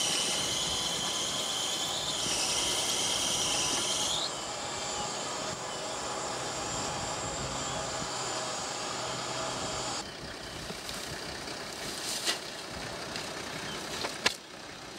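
Vehicle winch winding in its cable under load, pulling the bogged four-wheel drive toward a ground anchor dug into the sand: a steady high whine with a hiss. The whine shifts up about four seconds in and stops about ten seconds in, followed by a few sharp clicks.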